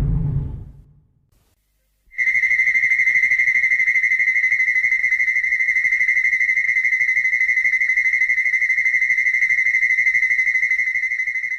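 King Ghidorah (2019) sound effect. A loud blast dies away in the first second, then about two seconds in a steady high-pitched electronic tone with a fast flutter starts and holds, fading near the end.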